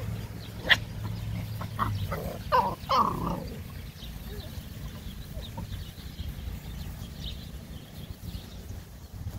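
Silver Labrador puppies giving a quick cluster of short, high yips and whines about two to three and a half seconds in, after a single sharp click just before. Only faint squeaks follow.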